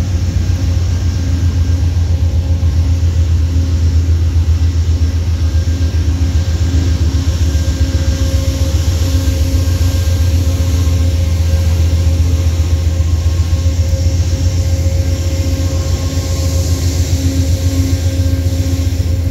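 Amtrak diesel locomotive running steadily beside the platform: a loud, steady low drone with a rapid flutter and a few steady higher tones over it.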